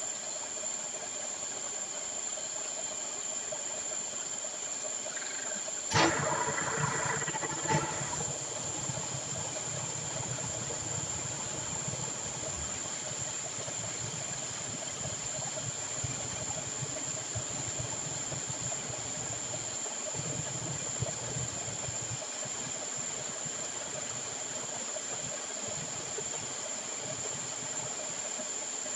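Slurry from the gold-processing tumbler drums rushing out through a pipe into cloth sacks in a settling pit, a steady hissing flow. It jumps suddenly louder about six seconds in, with a second surge about two seconds later.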